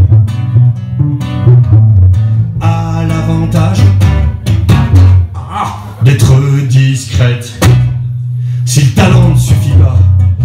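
Live band music: an electric bass guitar playing a walking line of low notes under plucked electric guitar, with light drums. This passage has no words sung.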